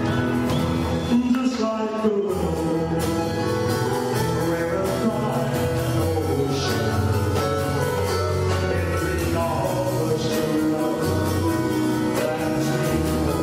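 A live band playing, with singing over the music.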